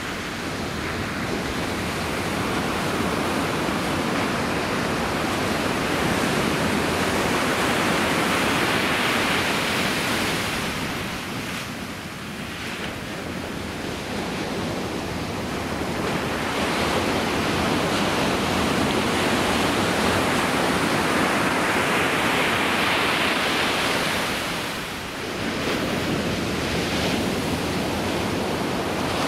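Ocean surf breaking and washing up a sandy beach: a steady rushing wash that swells and eases as the waves come in, dipping briefly about twelve seconds in and again a few seconds before the end.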